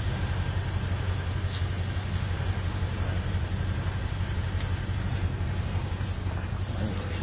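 A motor vehicle's engine running steadily, a low continuous drone, with a couple of faint clicks.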